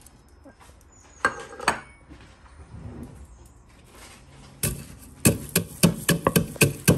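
A wooden pestle pounds whole cumin, coriander seeds and black peppercorns in a wooden mortar, crushing them coarsely. Two single knocks come about a second in. Near the end a quick run of knocks follows, about four a second.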